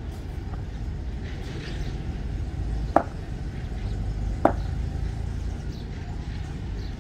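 Two sharp knocks from cricket net practice, about a second and a half apart, over a steady low outdoor rumble.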